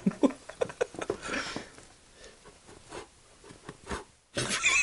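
Soft rustling and light taps from people moving about, with brief murmurs of voices; the sound drops out for an instant near the end.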